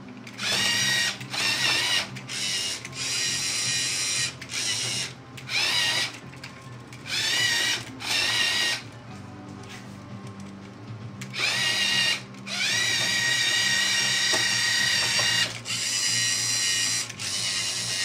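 LEGO EV3 motors driving an XY gantry along its tracks, running in stop-start bursts of a high whine that rises in pitch at each start and then holds steady. There are about eight bursts, the longest lasting nearly three seconds.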